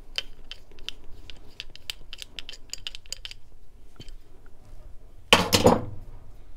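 Light, irregular metallic clicks of a hand tool working on the relief valve stem and disc assembly of a Watts 909 backflow preventer as it is taken apart, about four or five a second for the first few seconds. About five seconds in comes a short, louder burst of rustling and clatter lasting about half a second.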